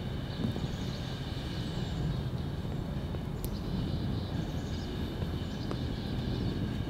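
Outdoor field ambience: a steady low rumble with faint, steady high-pitched tones over it and a couple of faint clicks.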